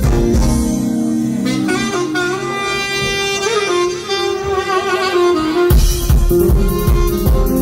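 Live band music led by a saxophone playing a sustained melody over keyboard, with the drums and bass dropping out for a few seconds; about three-quarters of the way through, the full band with drums comes back in.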